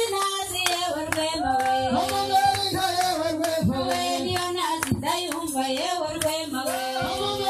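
Singing with music, accompanied by handclaps, as dancers perform.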